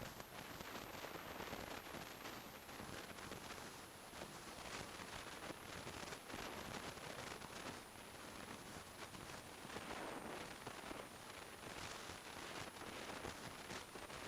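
Wind and road noise rushing over the microphone of an action camera mounted on a moving motorcycle. A steady, rough hiss is overlaid by a thin, high whine.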